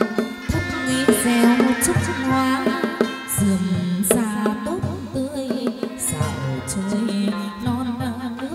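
Chầu văn ritual music: plucked strings over a moving bass line, with sharp percussion strikes keeping the beat.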